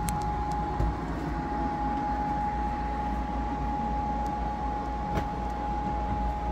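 Steady mechanical hum: a low rumble with one constant high-pitched tone running through it, and a couple of brief knocks, one near the start and one about five seconds in.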